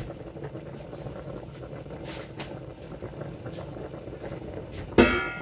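Large stainless stockpot of water at a full boil, a steady bubbling rumble. About five seconds in, a single sharp metallic clang of kitchen cookware rings on briefly.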